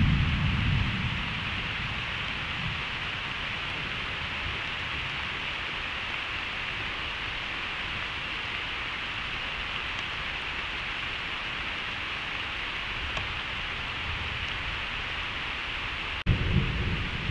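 Steady rain falling, an even hiss, during a thunderstorm. A low rumble of thunder fades out over the first second or two, and a loud burst of thunder comes suddenly near the end.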